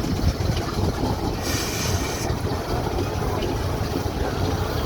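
A steady low rumble of wind buffeting the microphone, with a brief hiss about one and a half seconds in.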